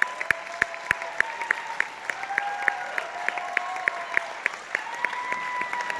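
Audience applauding, with separate claps heard several times a second rather than a dense roar, and a few drawn-out high tones rising and falling over the clapping.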